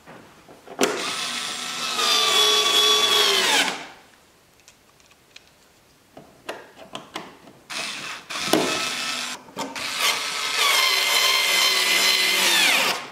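Compact cordless drill-driver driving screws into a car's plastic wheel-well liner, in two long runs of about three and about five seconds. Its whine holds steady and drops in pitch as each run stops, with a few clicks between the runs.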